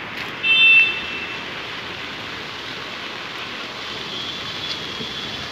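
Steady hiss of rain and floodwater across a flooded street, with a short, loud, high-pitched vehicle horn beep about half a second in and a fainter high horn tone near the end.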